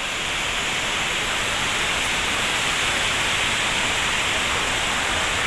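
Fast river rushing over rocks at a waterfall: a steady, even hiss of white water.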